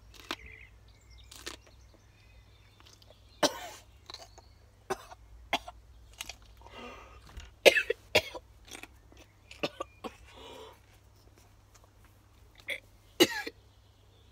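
A boy coughing in sharp, irregular fits, the loudest coughs about eight seconds in and again near the end, with a couple of longer breathy sounds between, from the heat of a chilli he has just eaten.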